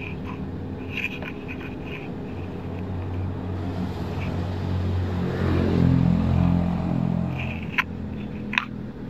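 A motor vehicle's engine swelling and fading as it passes, over a steady low hum. Two sharp clicks near the end.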